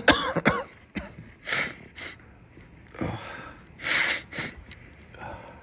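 A person with a head cold sniffing and breathing in sharply, about six short noisy sniffs spread over a few seconds, after a brief voiced sound at the very start.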